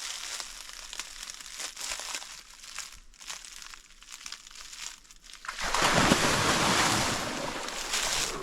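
Crunching footsteps in dry vegetation, then about six seconds in a loud rushing splash lasting a couple of seconds, as a crocodile lunges into the water.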